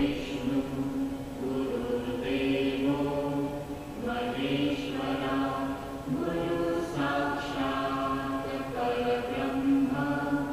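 Background music: a devotional mantra chanted by voices in long held phrases.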